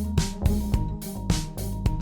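Background music with a steady drum beat over sustained bass and keyboard-like tones.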